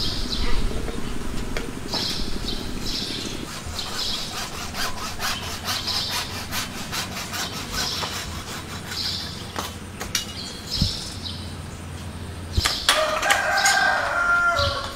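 Hacksaw cutting through blue PVC pipe in repeated back-and-forth strokes, a raspy plastic scrape, stopping about two seconds before the end.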